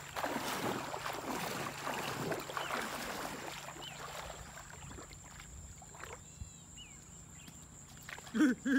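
River water splashing and sloshing as a man wades through it to a cast net, loud for the first three or four seconds and then settling. A few thin chirps follow, and a few short, loud pitched calls come near the end.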